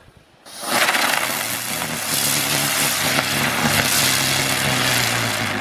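Weco Dicker Brummer XXL ground spinner firework catching about half a second in, then burning with a loud hissing spray over a steady low hum.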